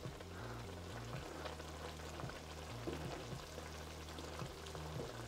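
Fish in tomato sauce simmering in a wok, with a soft sizzle and bubbling, while a wooden spatula stirs through it with scattered light taps and scrapes against the pan.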